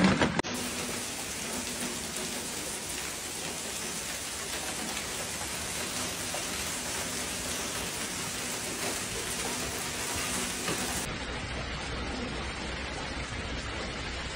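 Hail and heavy rain pelting the ground in a steady, dense patter. About eleven seconds in it turns duller, the hiss losing its top and gaining a low rumble.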